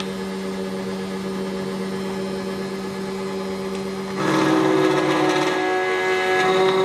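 SEC-E9 key cutting machine running steadily with its motor hum while cutting a new key blank; about four seconds in the cutting grows louder.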